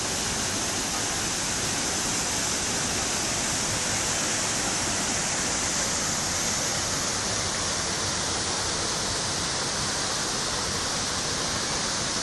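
A waterfall's steady rushing: an even, unbroken hiss of falling water that starts right after a cut.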